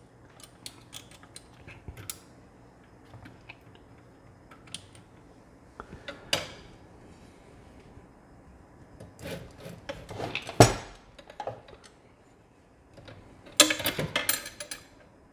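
A metal threaded rod being worked into a CNC machine's frame by hand: scattered small metal clicks and scrapes, a sharp knock about ten and a half seconds in, and a quick run of rattling clicks near the end.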